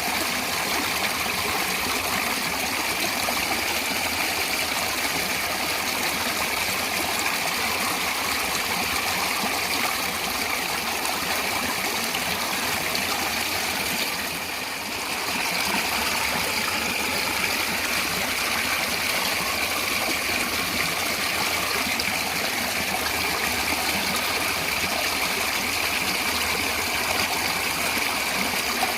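Natural flowing water, a stream, rushing steadily. The level dips briefly about halfway through.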